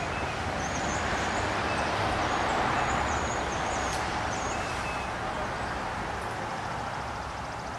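Traffic noise that swells and then slowly fades, over a low rumble, with birds chirping briefly and high throughout.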